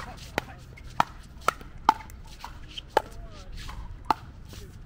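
Pickleball paddles hitting the hard plastic ball and the ball bouncing on the court: sharp, ringing pops about every half second to a second, as in a rally.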